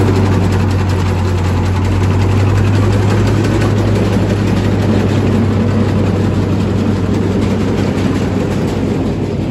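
Massey Ferguson tractor's diesel engine idling, a steady low hum.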